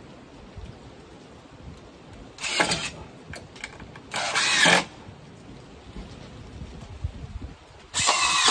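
Power drill run in three short bursts of about half a second each, with pauses between them.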